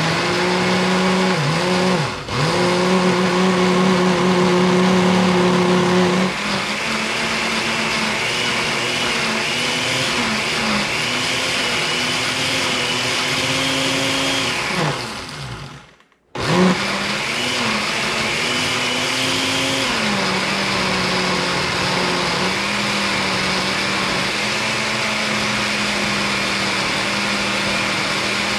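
Countertop blender with a glass jar running, blending onion, garlic, oil and vinegar into a dressing. Its motor hum dips briefly about two seconds in and rises a little in pitch a few seconds later. About halfway it winds down and stops, then starts again half a second later and runs steadily, settling back to a lower pitch.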